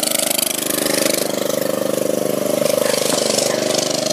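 Riding lawn mower engine running steadily as the mower drives across the lawn.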